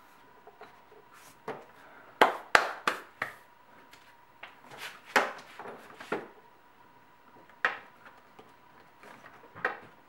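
Irregular clicks and knocks of a new DISA valve being handled and pressed into the intake manifold of a BMW E46, with a quick cluster of sharp knocks a couple of seconds in.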